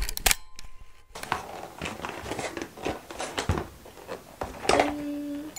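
Rustling and a run of light clicks and taps as a cardboard gift box holding two plastic detergent bottles is handled and set on a table.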